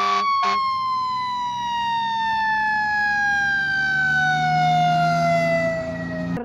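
Fire-engine siren sound: a single tone winding down, falling slowly and steadily in pitch, with a brief click about half a second in. It cuts off suddenly at the end.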